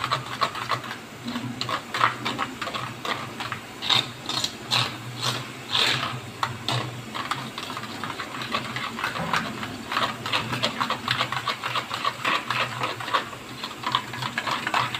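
Yogurt and spice marinade being stirred briskly in a steel bowl: quick rhythmic mixing strokes, several a second, over a steady low hum.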